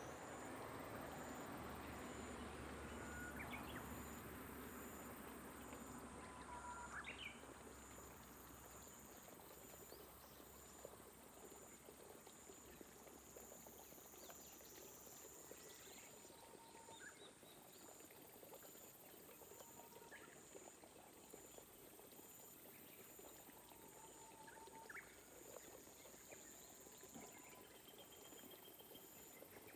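Faint rice-terrace field ambience: an insect calling in a steady high pulse throughout, with scattered short calls of birds or frogs, over a soft even hiss that drops away after about seven seconds.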